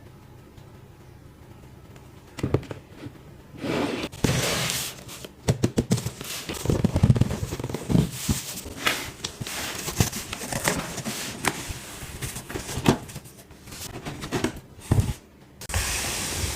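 Figure packaging being handled and opened: a dense run of sharp clicks, taps and crinkling from cardboard and plastic, starting a couple of seconds in after a quiet stretch.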